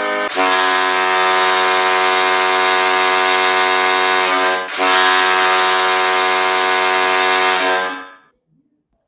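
Recorded ice hockey goal horn sounding in two long, steady blasts with a brief break between them. It stops just after eight seconds in, leaving silence.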